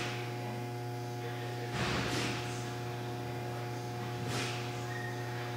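Steady electrical mains hum, with two faint brief rustles about two seconds and four seconds in.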